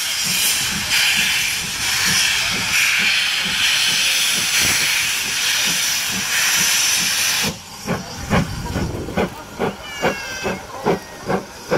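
Steam tank locomotive working a passenger train past. A loud hiss of steam pulses in time with its exhaust. About seven seconds in, the hiss dies away, leaving sharp, regular exhaust beats, about two to three a second.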